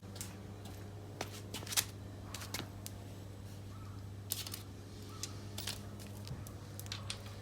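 Scattered light clicks and clinks, several in quick clusters, over a steady low hum.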